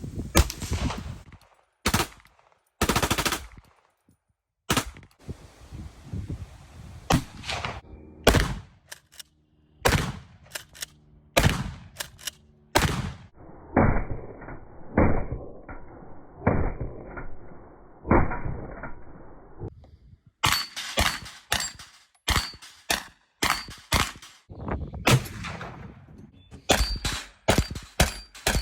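Gunfire: a long string of separate shots with uneven gaps, some coming in quick bursts of several rounds. For a few seconds in the middle the shots sound duller.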